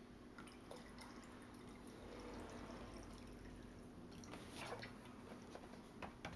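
Vinegar being poured into a coffee maker's water reservoir: a faint trickle of liquid, with a few light clicks in the second half.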